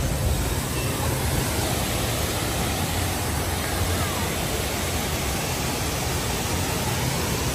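Wonder Mountain's man-made waterfall pouring into a pool: a steady rushing of water.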